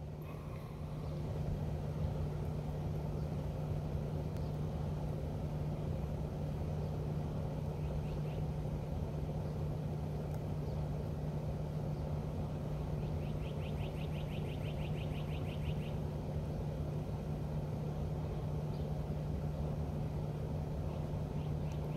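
A steady low hum and rumble with one droning tone. Just past the middle comes a rapid series of high, short chirps, about four or five a second, lasting a few seconds.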